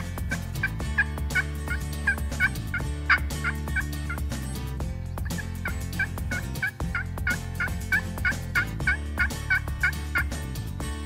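Turkey yelps in a long, even series, about four or five notes a second, in two runs with a short break about halfway.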